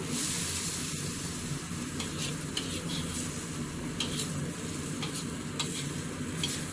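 Frog meat and vegetables sizzling in a pan while being stir-fried, with a cooking utensil scraping and knocking against the pan several times.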